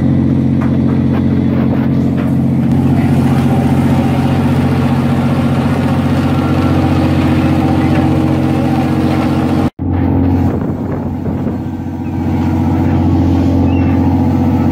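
Steady low machinery drone on a crab boat's deck: the vessel's engine and deck hydraulics running. It cuts out for an instant about two-thirds of the way through.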